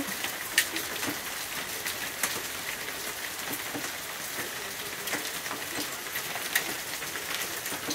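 Small hail and rain falling steadily: an even hiss dotted with sharp ticks of hailstones striking the ground.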